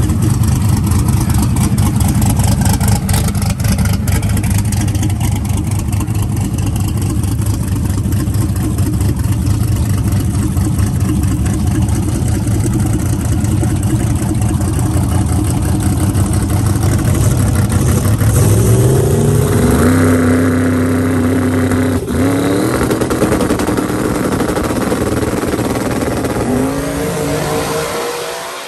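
Twin-turbo big-block V8 of a drag-racing Camaro idling at the starting line. About two-thirds of the way in it is revved up and held at higher revs, dips briefly and climbs again, then dies away near the end.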